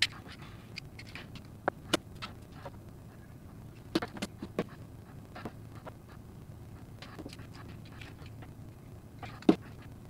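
Light clicks, taps and small scrapes of a 1/64 scale model car's plastic chassis and metal alloy wheels and axles being handled and fitted by hand. There are a few taps near the start, a quick run of them about four seconds in, and one sharper knock near the end.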